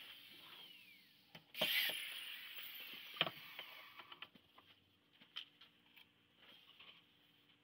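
Corded electric drill run in a short burst about a second and a half in, its motor whine falling as it spins down, then a sharp knock and a few light handling clicks on the wooden jig.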